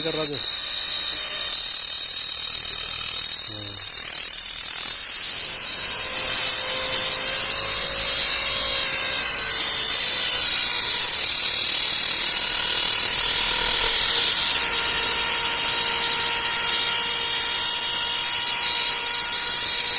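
Insects calling in a loud, continuous high-pitched buzzing chorus that swells louder about five seconds in.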